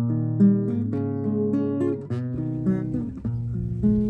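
Background music played on acoustic guitar, plucked and strummed in a steady run of changing notes.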